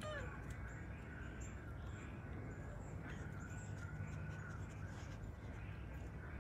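A short, arching animal call right at the start, followed by a faint, thin, steady high tone over a low background rumble.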